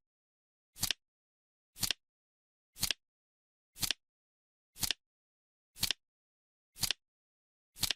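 Timer clicks ticking once a second: short, sharp clicks evenly spaced, with dead silence between them.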